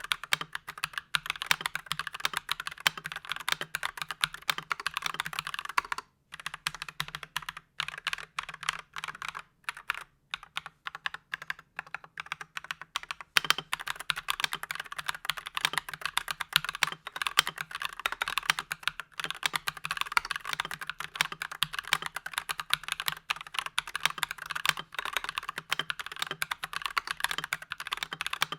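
Typing on an Akko 5087B Plus mechanical keyboard in stock form, with its factory Akko Cream Yellow V3 Pro switches in a plastic case with an aluminium plate and next to no dampening. It is fast, continuous typing that slows to separate keystrokes from about 6 to 13 seconds in and then speeds up again. The reviewer judges the stock sound to need modding.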